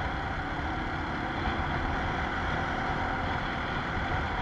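Motorcycle cruising at a steady speed on a wet road: a steady engine hum mixed with wind and road noise, heard from a camera riding on the bike.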